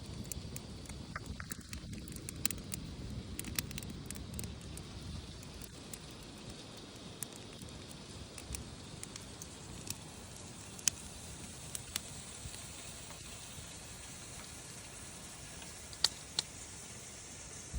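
Wood campfire crackling, with scattered sharp pops; the loudest come about eleven and sixteen seconds in. Under it runs a steady hiss of steaks sizzling on a Blackstone griddle, which grows stronger in the second half.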